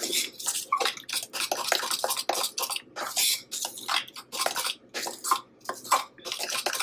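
Metal spoon stirring a thick powdered-sugar glaze in a glass measuring cup, scraping and clinking against the glass in quick, uneven strokes, several a second.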